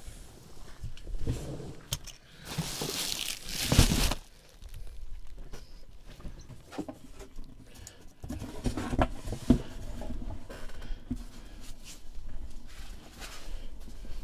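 Cardboard shipping box and its packing material being handled: a loud burst of rustling and crinkling from about two and a half to four seconds in, then scattered knocks and softer rustles as things are pulled out of the box.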